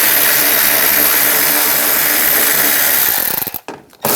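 Cordless power driver spinning an 8 mm socket to back out an inner fender liner bolt. It runs steadily for about three and a half seconds, stops, then starts again on the next bolt just before the end.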